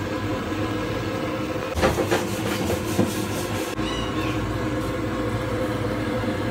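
Steady mechanical hum, with a few light clicks and knocks about two to three seconds in.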